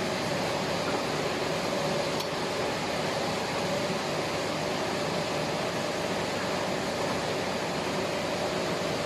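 Steady machine hum with a faint steady whine.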